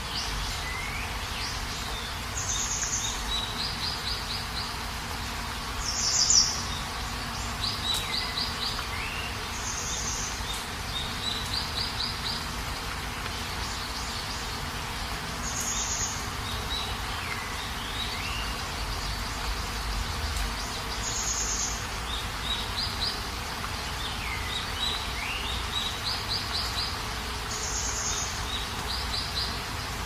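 Steady rain hiss with birds calling over it: short high chirps, quick little trills and falling whistles every few seconds, the loudest chirp about six seconds in.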